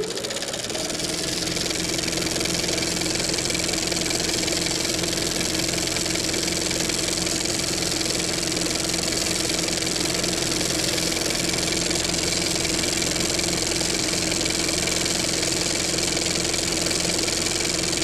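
A motor running at a steady speed with a constant hum, having just spun up.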